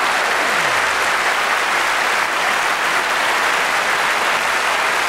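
Large studio audience applauding, a dense and steady clapping.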